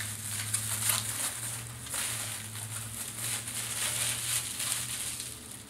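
Packaging rustling and crinkling in irregular bursts as an item is unwrapped by hand, over a steady low hum.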